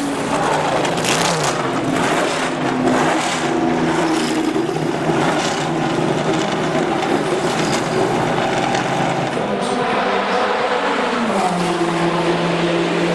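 Historic endurance racing car engines running loud and steady, with sharp crackles over them. About eleven seconds in, one engine note drops in pitch and then holds.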